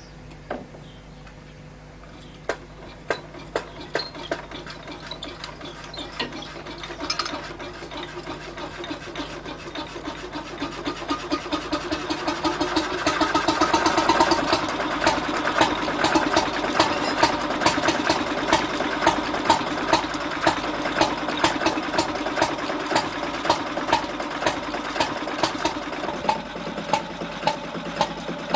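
Hopper-cooled single-cylinder stationary engine starting and running up: slow ticking that speeds up and grows louder over the first dozen seconds or so, then a steady run of even beats with a louder bang about once every second and a quarter.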